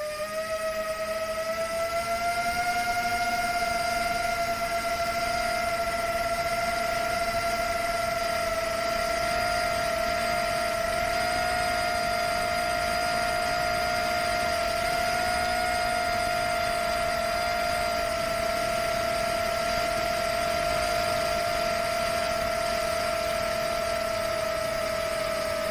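Brushless motors and propellers of a Rekon 5 FPV quadcopter, heard from its onboard camera, whining steadily in forward cruise, the pitch rising a little about two seconds in and then holding, under a constant rush of wind noise.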